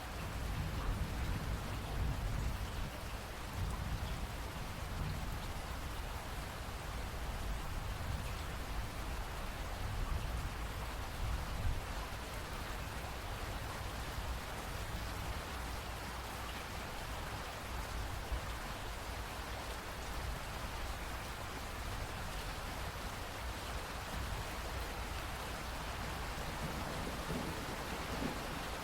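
Steady rain falling, with a low rumble of thunder that is strongest in the first half and then eases.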